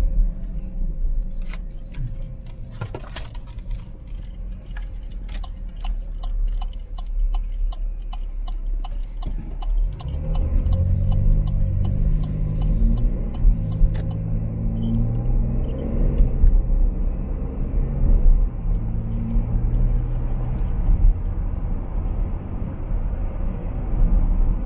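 Car cabin sound: a turn signal ticks steadily, about two to three times a second, over a low engine rumble. About ten seconds in, the engine and road noise grow louder and rise in pitch as the car pulls away and gathers speed.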